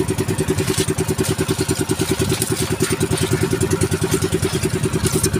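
Small outrigger-boat engine running steadily with a quick, even chugging.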